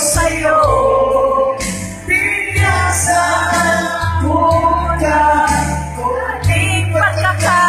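Song played as background music: singing over a heavy bass beat with percussion.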